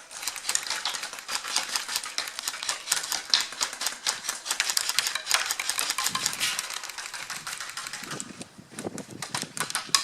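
Airsoft electric guns firing in rapid, irregular bursts of sharp clicks.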